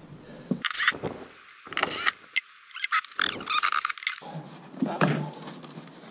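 Cordless drill-driver running in several short bursts as it backs out the screws holding a caravan's plastic wheel-arch trim, with clicks of handling in between.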